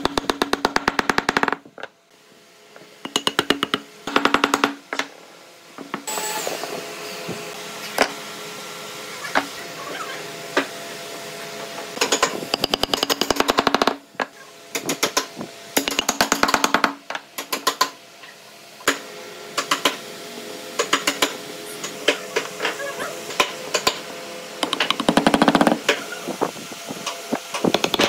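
Repeated bursts of rapid knocking, each about a second long, with single knocks between, as glued tenons on pine legs are driven down into mortises in carved pine feet. A faint steady hum runs underneath.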